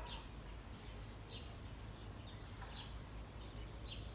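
Small birds chirping faintly: short, high chirps that fall in pitch, about one a second, over a low steady background rumble.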